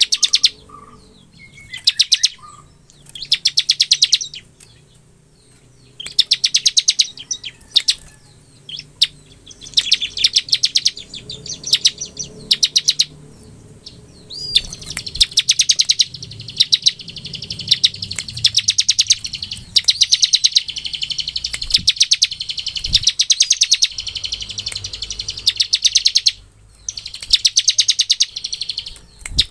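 Bar-winged prinia (ciblek) singing its 'ngebren' song: bouts of very fast, drill-like trills of high clicking notes, each about a second long with short gaps between them, running almost without a break through the middle stretch.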